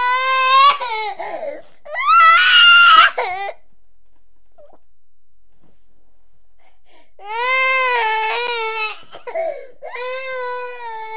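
A baby crying in long wails: two wails in the first few seconds, the second higher-pitched and loudest, then a pause of about four seconds and two more wails near the end.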